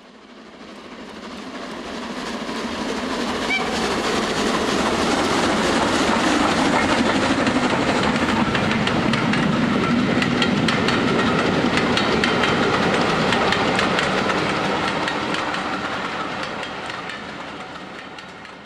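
A train running on rails, its wheels clicking over the rail joints. It swells in over the first few seconds, holds steady, and fades away near the end.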